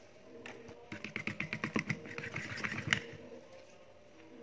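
Quick run of small clinks and clicks from kitchen utensils and containers being handled, about ten a second for two seconds, ending in a sharper click about three seconds in.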